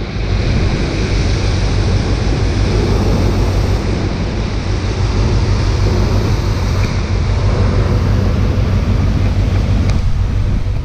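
Rushing water of a cargo ship's wake and wind buffeting the microphone, steady throughout, over a low constant hum of the ship's engine.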